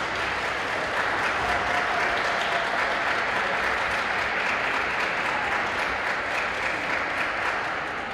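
Audience applauding at the end of a figure skating program. The clapping is steady and dies down slowly near the end.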